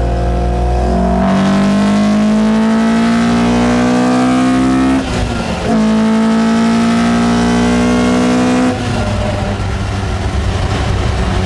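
Toyota 20-valve four-cylinder engine breathing through individual throttle bodies, heard from inside the cabin, pulling hard under full throttle. Revs climb for about four seconds, break for a quick upshift about five seconds in, climb again for about three seconds, then the throttle is lifted and the engine settles back to a steady cruise.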